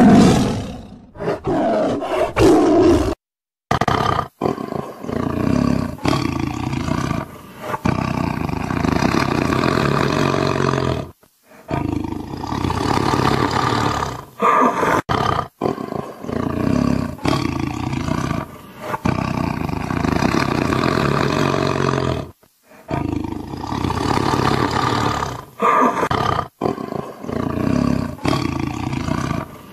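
Tiger roaring, a string of roars from several separate recordings, with short silent breaks about 3, 11 and 22 seconds in. The first roar is the loudest.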